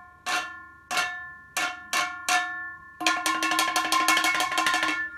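A metal kitchen grater struck with a spoon, ringing like a small bell. It rings out on five separate taps, then on a fast run of taps lasting about two seconds.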